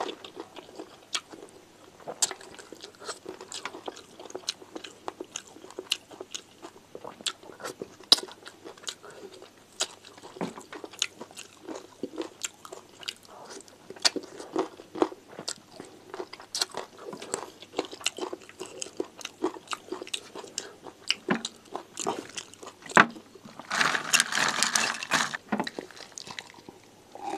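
Close-miked chewing with many wet mouth clicks, as mouthfuls of rice and side dishes eaten by hand are chewed. Near the end, a stretch of drinking from a glass jar of milk coffee.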